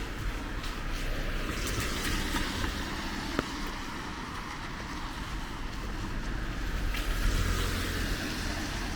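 Cars driving past on a rain-wet road, their tyres hissing; one passes about two seconds in and another, with more engine rumble, about seven seconds in.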